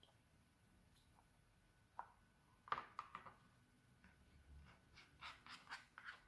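Faint handling sounds of slime shaped like a fried egg. There is a cluster of light clicks about three seconds in. Near the end comes a quick run of five or six small crackling squishes as a hand grabs and squeezes the slime.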